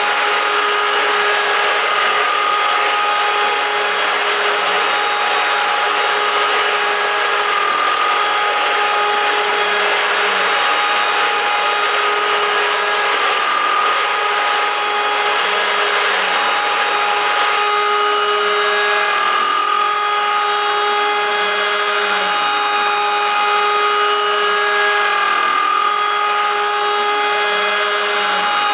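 WorkBee CNC router's spindle milling 6061 aluminium with a large disc-shaped cutter: a steady loud whine of several held tones over a cutting hiss. The tones shift and a few new ones join about 18 seconds in.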